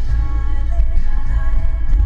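Background music with a heavy bass and sustained melody notes.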